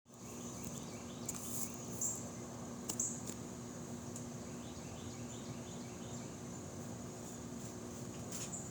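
Outdoor ambience: a steady low rush of wind, with runs of faint, quick high chirps and a few sharp clicks, the loudest about two and three seconds in.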